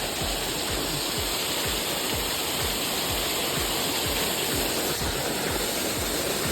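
Waterfall rushing steadily close by: a constant roar of falling water with an uneven low rumble.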